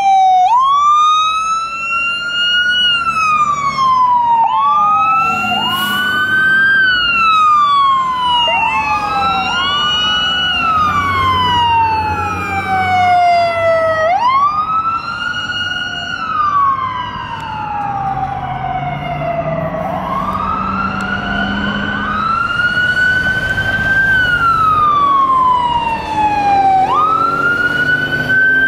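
Fire truck sirens wailing: repeated rising and falling wails, each climbing quickly and sliding down slowly, with two sirens often overlapping. A low engine rumble runs underneath.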